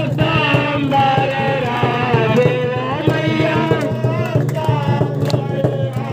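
Devotional aarti music: a sung, wavering melody over tabla-like drumming and a steady low drone, with people clapping along.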